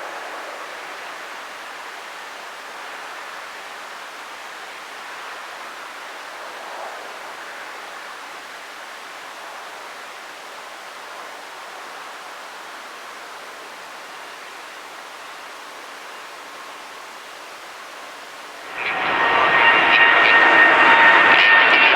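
Faint steady outdoor hiss, then about nineteen seconds in the Boeing 787-9's jet engines come in suddenly and loud at takeoff thrust: a steady rush of engine noise with several high whining tones on top.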